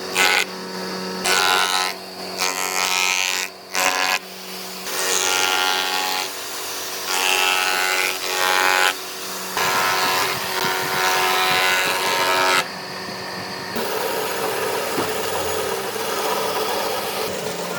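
Electric power tool running and working wood. It comes in short stretches that start and stop abruptly, then runs more steadily for the last several seconds.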